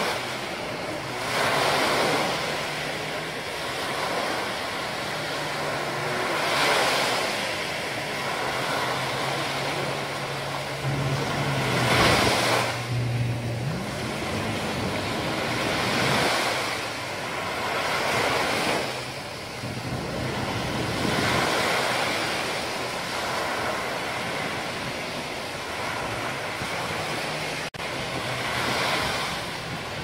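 Small waves breaking and washing up a sandy beach, the surf swelling every few seconds. A low steady motor drone runs underneath.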